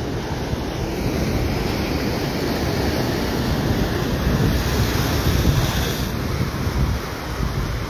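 Ocean surf breaking and washing over a rock shelf, a steady hiss of foam that swells in the middle and eases off around six seconds in, with wind buffeting the microphone underneath.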